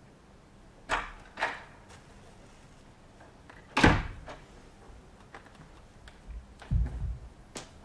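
A door knocking and then shutting with a sharp bang about four seconds in, followed near the end by several dull thuds of feet on a hard floor.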